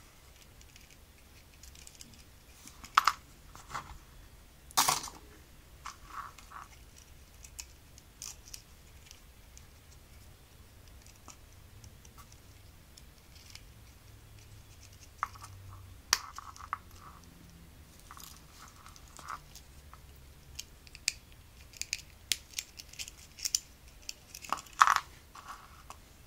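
Scattered sharp metallic clicks and taps from a brass key ring and steel pliers being worked onto a small leather pick case, with light handling of the leather case. The loudest clicks come about 3 and 5 seconds in and again near the end.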